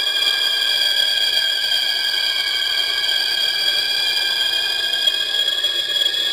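A high electronic tone from the cartoon's soundtrack, several pitches held together and steady without changing.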